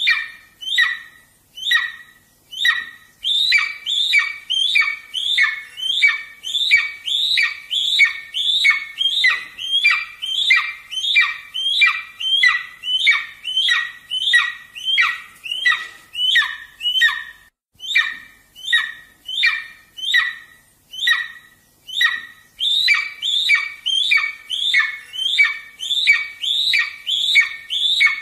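Golden eagle chick calling over and over: a rapid series of sharp, high squawks, about two or three a second, with a brief pause about two-thirds of the way through.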